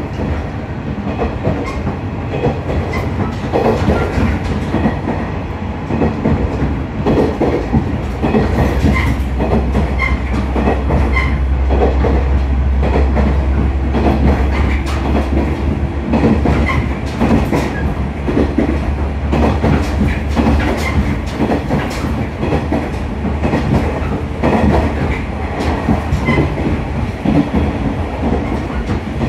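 Cabin running sound of a KiHa 110 series diesel railcar under way: its DMF14HZ diesel engine drones, with a deep hum that grows about eight seconds in and eases a few seconds before the end. Wheels click over rail joints and the car body rattles.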